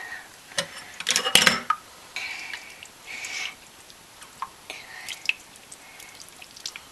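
Wet squelching and dripping as a lump of glue-and-borax slime is squeezed by hand, pressing the extra water out into a stainless steel sink. A quick cluster of sharp clicks about a second in is the loudest moment.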